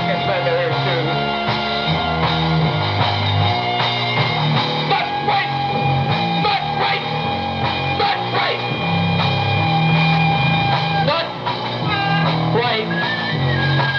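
Punk rock music: drums keeping a steady beat under a stepping bass line and long held high notes.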